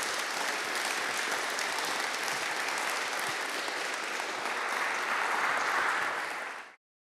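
Audience applauding, swelling a little near the end, then cut off abruptly.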